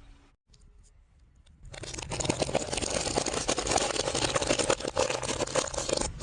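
A car running over Coke bottles: dense crackling and crunching that starts about two seconds in, after a quiet opening.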